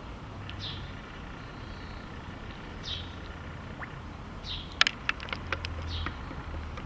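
Carp sucking food at the water surface, making a quick run of sharp smacking pops a little past halfway. A bird repeats a short falling chirp every second or so, over a low steady rumble.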